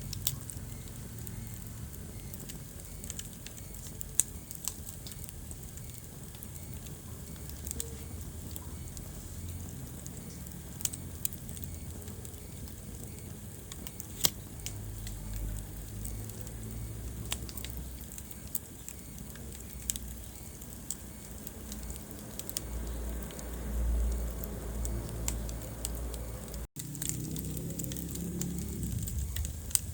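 Wood fire crackling in a fireplace: irregular sharp pops every second or so over a low, steady rumble of the flames. The sound cuts out for an instant near the end.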